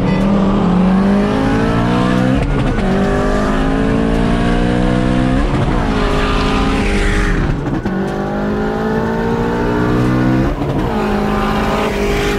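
Twin-turbocharged Ford Mustang Shelby GT350's V8 at full throttle from inside the cabin, rising in pitch through each gear, with the revs dropping at four upshifts about two, five and a half, seven and a half and ten and a half seconds in.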